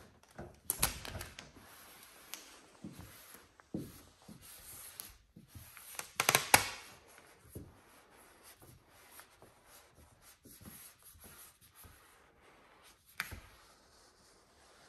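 Microfiber towel rubbing matte black vinyl film down onto a car bonnet, an irregular scuffing and swishing, with louder crinkling handling of the vinyl sheet about one second and six seconds in and a sharp click a little after thirteen seconds.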